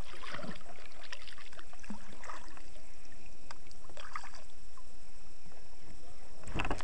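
Kayak on a creek: steady running water with scattered light knocks and splashes, and a louder knock just before the end.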